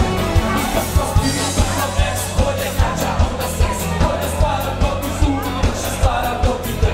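Dance band playing an upbeat pop song, with singing over a steady, fast drum beat.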